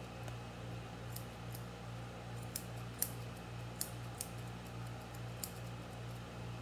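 Grooming scissors snipping the hair around a small dog's mouth: a handful of quick, sharp snips, mostly in the middle stretch, the loudest about three seconds in.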